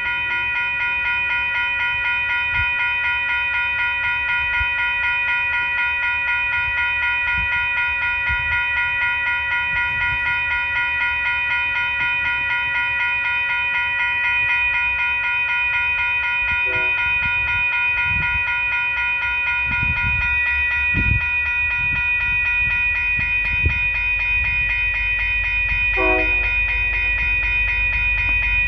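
Railroad grade-crossing warning bell ringing steadily and continuously as a train approaches. Two brief horn notes from the approaching locomotive sound, about two-thirds of the way through and again near the end.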